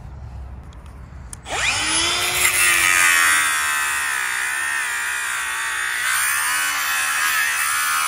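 Makita angle grinder spinning up about a second and a half in, then whining steadily as the disc cuts a thin woody stem off below ground level, its pitch wavering as the disc bites into the gritty soil.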